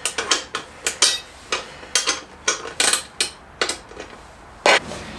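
Small bolts, washers and nuts clinking and tapping against the metal frame of a motorcycle wheel chock as a bolt is pulled out and refitted the other way round. The clicks come irregularly, with a louder knock near the end.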